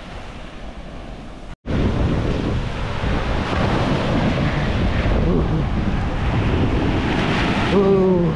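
Wind buffeting a microphone that has no windscreen, over the wash of ocean surf. The sound drops out for an instant about a second and a half in, then comes back louder.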